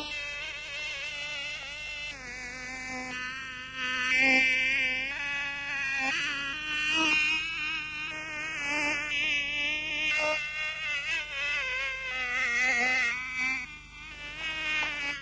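A fly buzzing, its pitch wavering up and down and its loudness swelling and fading.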